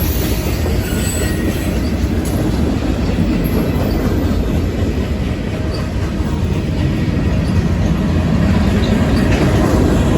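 CSX manifest freight train's cars rolling past: a steady, loud rumble of steel wheels on rail.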